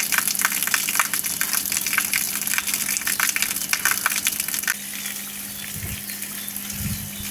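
Water gushing and splashing over a German Shepherd during its bath, with a steady low hum underneath. The splashing eases off about two-thirds of the way through.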